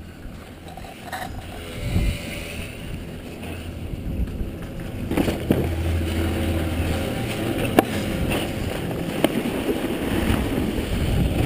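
Snowboard sliding and scraping over packed snow as the rider comes off the chairlift at the unloading ramp and glides away, a steady rushing noise that grows louder about halfway through, with a few sharp knocks.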